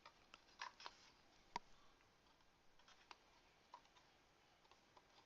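Faint, scattered clicks and taps of a solid state drive being fitted into a laptop's hard-drive caddy.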